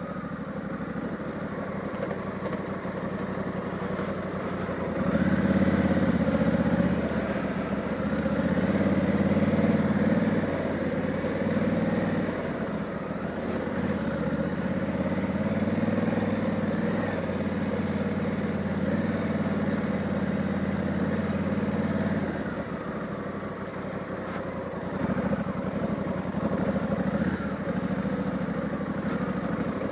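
2020 Honda Africa Twin's parallel-twin engine running as the motorcycle is ridden along. The engine note gets louder about five seconds in as the throttle opens, and eases back a little after twenty seconds.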